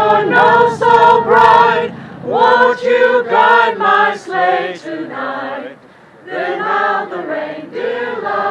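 A crowd of men and women singing a Christmas song together in phrases, with a short break about six seconds in.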